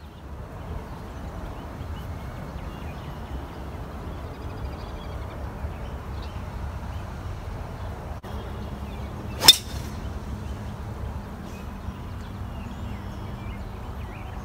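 Wind buffeting the microphone in a steady low rumble, broken about two-thirds of the way through by a single sharp crack: a driver striking a golf ball off the tee.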